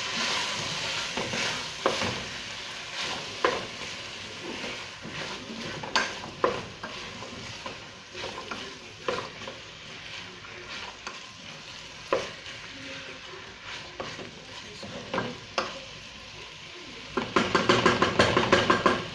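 Diced chicken and vegetables sizzling in a stainless steel pot while a spoon stirs them, with scattered knocks and scrapes of the spoon against the pot. Near the end the stirring speeds up into a quick run of scrapes, the loudest part.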